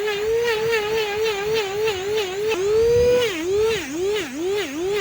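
High-speed dental lab micromotor handpiece grinding or polishing the acrylic of a repaired denture: a steady whine whose pitch dips each time the bur bites and recovers as it is eased off, quickly at first, then in deeper, slower dips from about three seconds in.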